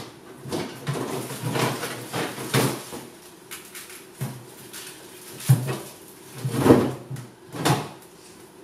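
Irregular clunks and knocks of items being moved about in an open fridge, with the loudest knocks in the second half.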